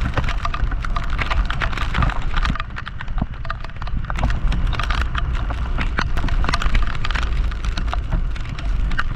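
Heavy rain with drops striking close to the microphone, making many irregular sharp taps over a steady low rumble.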